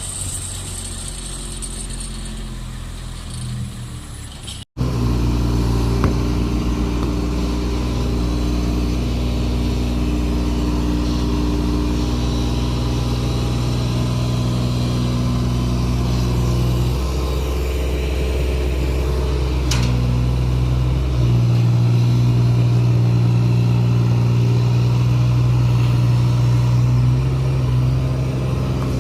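Backhoe engine running steadily, its tone shifting a few times. There is an abrupt break about five seconds in, after which the engine is much louder.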